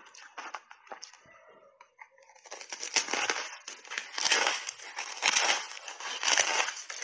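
Close-miked crunching of a frozen berry ice bar being bitten and chewed. It starts quietly, then from about two and a half seconds in turns into loud, crackly crunches about once a second.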